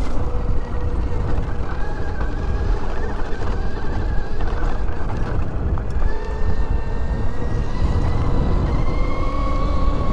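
NIU XQi3 electric motorcycle's geared electric motor whining while riding, its pitch gliding up and down with speed, over wind noise on the microphone and a low rumble.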